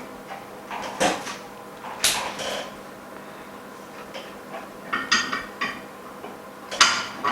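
Scattered hard clicks and knocks of an iPhone LCD and base frame being handled into a metal mold on a repair machine, a few with a brief metallic ring; the loudest knock comes near the end.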